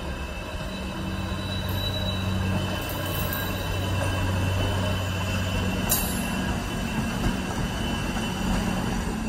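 Slow-moving train led by a diesel shunting locomotive: a steady low engine drone over rumbling wheel and rail noise, with a faint high squeal from the wheels and a sharp click about six seconds in.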